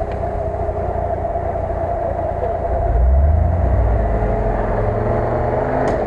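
UAZ-469 off-roader's engine pulling through snow, revving up about halfway through and holding at the higher revs.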